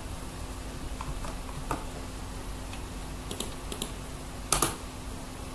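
Computer keyboard keystrokes: a few scattered key presses, then a louder one about four and a half seconds in, over a faint steady hum.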